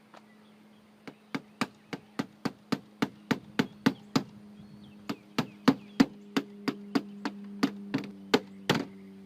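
Hammer tapping small finish nails in, a quick, even run of light blows about three to four a second, with a short break about halfway through. A steady low hum runs underneath.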